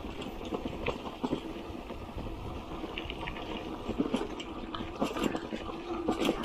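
Bicycle rattling over a rough dirt road: irregular clicks and clatter from the front wire basket and handlebar fittings over a steady low rumble of tyres and wind.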